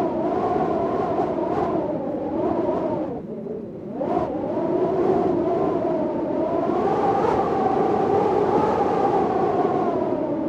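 Storm wind howling, with a pitched tone that wavers up and down over a rushing hiss. It eases briefly about three seconds in, then swells back up in a new gust.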